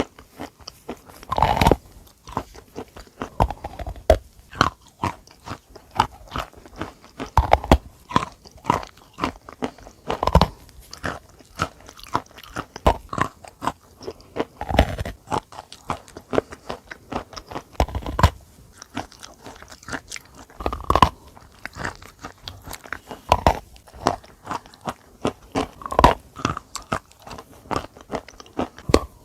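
A person biting into and chewing a hard, dry chalk-like mineral, with a loud crunching bite every few seconds and quick, dense crunching between bites.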